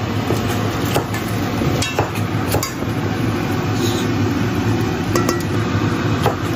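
A metal spatula scraping and knocking against a steel wok as a chicken stir-fry is scooped out into a pot, with scattered sharp clinks, over a steady low hum.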